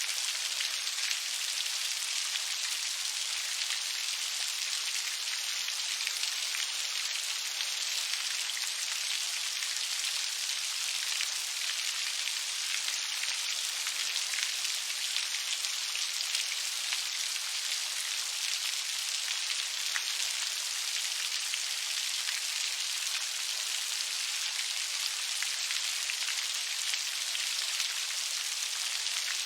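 Steady rainfall: an even hiss of countless drops that does not change, with no thunder.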